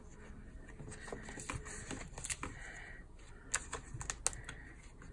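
Paper rustling and light clicking as sticker book pages and sticker sheets are handled, with a few sharper clicks about three and a half to four and a half seconds in.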